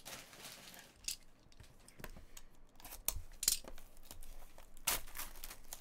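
Foil wrapper of a trading-card pack crinkling and tearing as it is opened by hand, in short irregular bursts.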